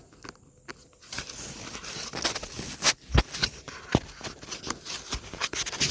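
Handling noise from a camera holder being adjusted and tightened close to the microphone: a run of rustling and clicking with several sharp knocks, the loudest about three seconds in.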